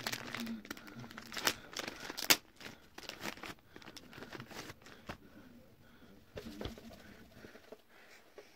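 Soft plastic packet of lemon wipes crinkling and tearing as it is handled and opened, with rapid sharp crackles for the first few seconds, the loudest about two seconds in, then fewer and fainter crackles.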